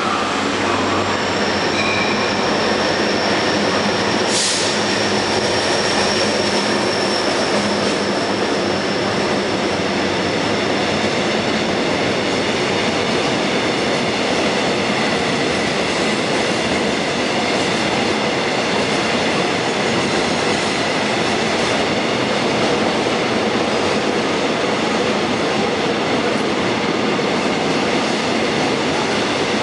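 Jungang line electric commuter train running along the tracks, heard from inside the carriage: a steady rumble of wheels on rail with faint high whining tones over it. There is one brief sharp click about four and a half seconds in.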